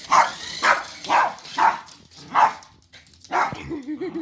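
A dog barking, about five loud barks in the first two and a half seconds, then a lower, wavering vocalisation near the end.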